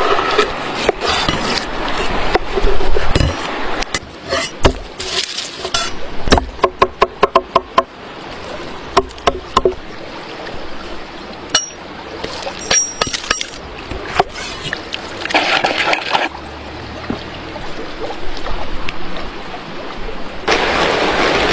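Food-preparation handling sounds: utensils and dishes clinking and knocking, a quick even run of about eight sharp taps, and short stretches of scraping or rubbing, loudest near the end.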